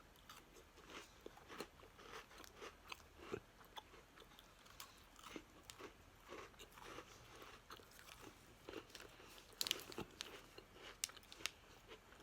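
Faint crunching and chewing of a very thin, crisp butter biscuit: many small, irregular crunches, with a louder run of them near the end.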